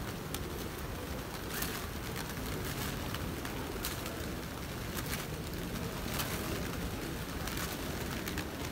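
A large flock of feral pigeons flapping around, with sharp wing claps about every second over a steady low city rumble.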